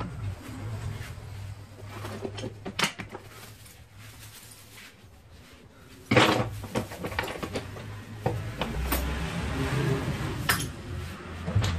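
Metallic clinks and knocks of a circular saw and a metal mounting plate being handled and set on a workbench, with a louder clatter about six seconds in.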